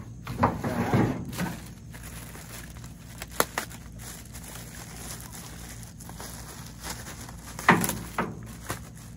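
Metal kayak rack parts in plastic wrapping being handled: rustling in the first second or so, a sharp click a little after three seconds in, and a louder clunk with a smaller knock just after near the end, over a steady low hum.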